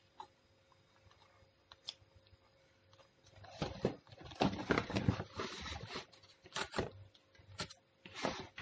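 Cardboard carton rustling, crinkling and scraping as a macaque paws and pulls at it, starting about three and a half seconds in, with a few sharp knocks.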